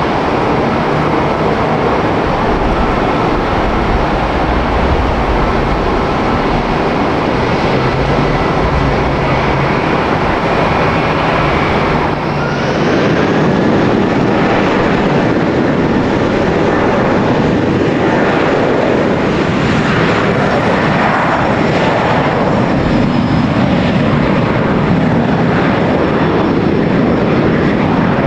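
Jet airliner engines running loudly, a dense steady noise. About twelve seconds in the sound changes abruptly to a fuller jet noise with a slow wavering flutter, as of an airliner passing close at high thrust.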